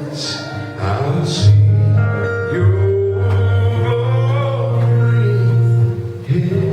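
A man singing long, drawn-out notes of a slow gospel worship song over sustained instrumental accompaniment.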